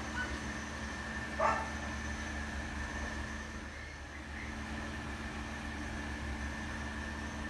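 Steady low machine hum, with a single short dog bark about a second and a half in.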